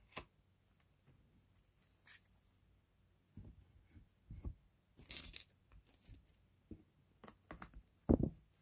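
Tarot cards being handled at a table as a card is drawn: scattered soft rustles and light taps, a sharper rustle about five seconds in, and a thump near the end.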